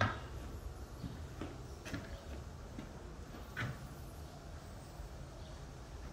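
Footsteps and a few sharp knocks on a bare floor over a low steady rumble, the loudest knock a little past halfway.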